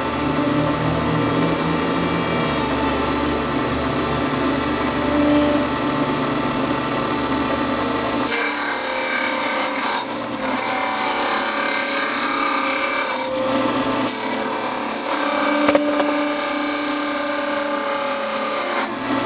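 Bench disc sander running, then grinding a briar pipe-bowl blank held against the disc from about eight seconds in; the sanding noise drops briefly a few times.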